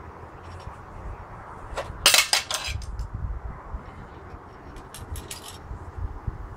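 Steel pieces clinking and clanking against each other as they are handled: a quick run of metal knocks about two seconds in, the loudest, and a smaller run about five seconds in.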